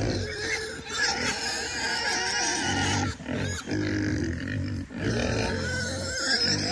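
Pigs grunting steadily, a continuous rasping chorus.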